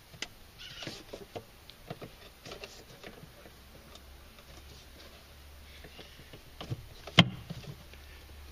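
Plastic tail-light housing being pushed back into a car's rear body: a scatter of small plastic clicks and scrapes, then one sharp knock about seven seconds in.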